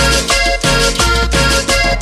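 Cumbia sonidera music: a steady dance beat over deep bass and held chords.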